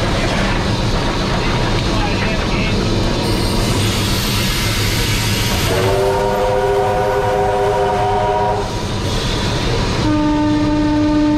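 Steam locomotive 3801 under way, heard from inside its cab: a steady loud running noise of the engine and wheels on rail. About six seconds in, a chord-like train warning note of several tones sounds for about three seconds. Near the end, a lower single-note blast sounds briefly.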